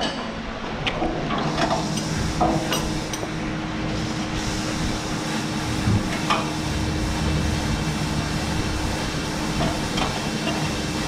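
Scattered metallic clinks and knocks from handling a chain hoist and a steel front-end loader frame, over a steady hum with a faint held tone.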